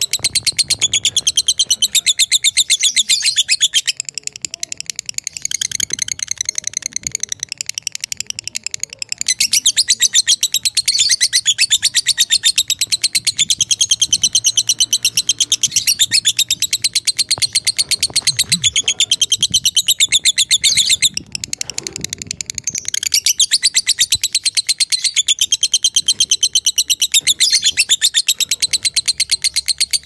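Masked lovebird (green, black-headed personata) giving long runs of very rapid, high chattering trills, the sustained song that lovebird keepers call ngekek. The trilling breaks off briefly twice and then resumes.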